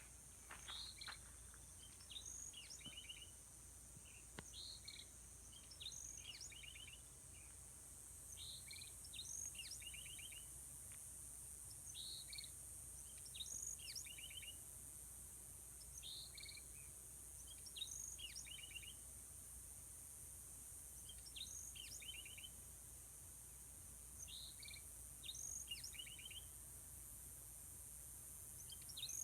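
A single songbird faintly singing the same short phrase over and over, every two to three seconds: a clear note or two, then a quick trill, over a steady high hiss.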